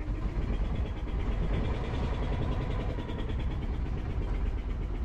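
Fishing boat's engine running steadily.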